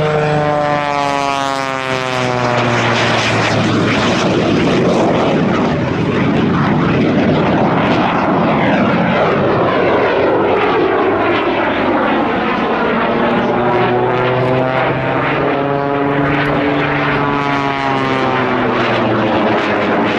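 A propeller airplane's engine and propeller droning as it flies past. The pitch falls over the first few seconds, a dense rush of noise fills the middle, and the pitch rises and falls again near the end.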